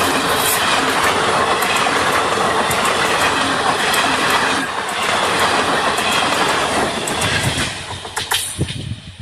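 Indian Railways passenger train passing close by at speed, with a steady rumble and wheels clattering over rail joints. The sound eases away near the end.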